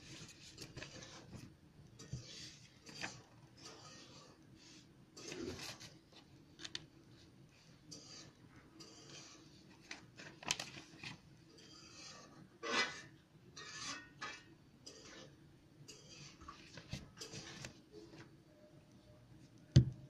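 Scattered faint rubbing and scratching noises that come and go irregularly, with one sharp click just before the end.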